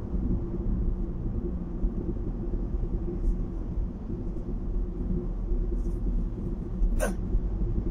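Steady tyre and engine rumble inside a car cruising on a highway, with a low hum. A single sharp click near the end.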